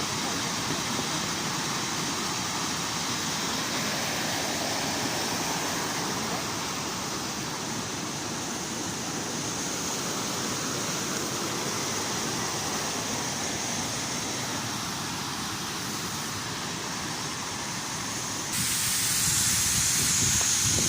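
Waterfall in full flow, a steady rushing of falling water. About two-thirds of the way through it turns abruptly louder and hissier.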